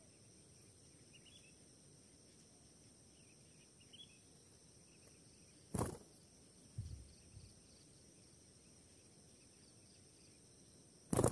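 Quiet outdoor background with a few faint distant bird chirps in the first few seconds. A sharp click comes about six seconds in, followed by a few soft low thumps, and another click near the end.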